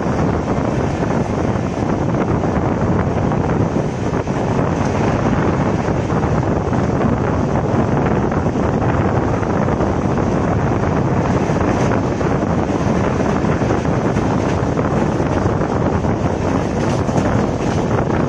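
Steady wind buffeting the microphone held outside a moving passenger train, over the continuous rumble of the coaches running along the track.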